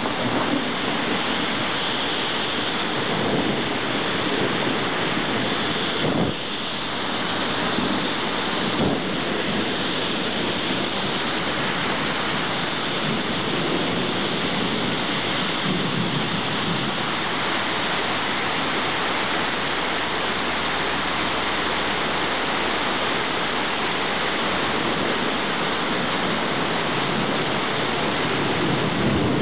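Rain pouring down steadily, a dense, even hiss with no let-up, with a faint low rumble about two-thirds of the way through.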